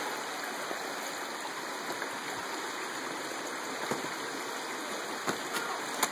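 Steady rushing of a mountain stream, with a few short sharp clicks about four, five and six seconds in.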